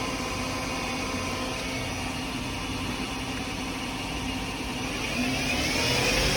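Spindle of a 1997 Daewoo Puma 200M CNC lathe running at steady speed with a hum and a whine of fixed tones, then starting to speed up about five seconds in, its pitch rising and its sound getting louder.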